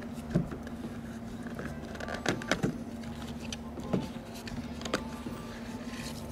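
Shotgun shells clicking and knocking as they are handled and pushed into the cartridge loops of a hunting vest, about five sharp clicks, the loudest a close pair about halfway through. A steady low hum runs underneath.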